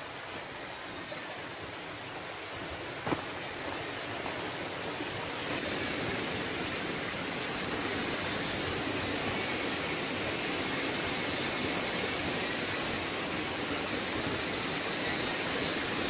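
Steady rush of flowing water, growing louder over the first few seconds and then holding even. A single sharp click comes about three seconds in.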